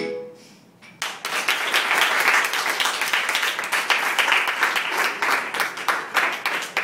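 A children's choir's last sung note dies away, and after a brief pause a small seated audience starts clapping about a second in, steady applause from many hands.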